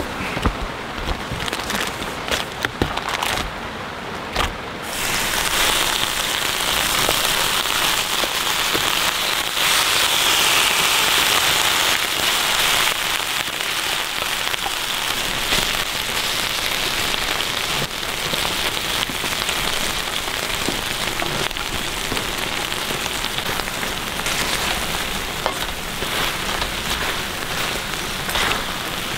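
Heavy rain drumming on a camping tarp. Sharp separate drops strike close in the first few seconds, then a denser, steady downpour takes over about five seconds in.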